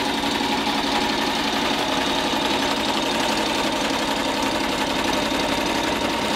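Electric sewing machine running steadily at speed, its needle stitching through white sailcloth canvas with a fast, even mechanical clatter.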